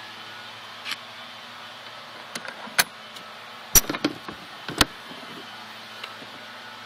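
Latch and door of a refrigerated truck body's freezer compartment clanking as the door is unlatched and swung open: several sharp knocks, the loudest in the middle, over a steady low hum.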